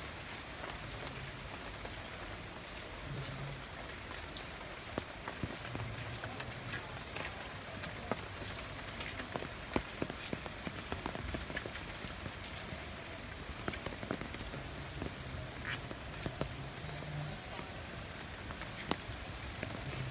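Steady rain falling on large tropical leaves and a paved garden path, with scattered drips and taps.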